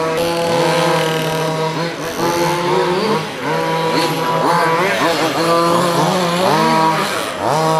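Small two-stroke engines of radio-controlled off-road cars racing. More than one engine can be heard at once: the pitch rises and falls every second or so as they rev up and back off through the turns, over a steadier engine note.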